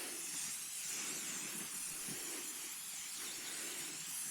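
Aerosol can of SC1 spray detailer spraying in a steady, continuous hiss.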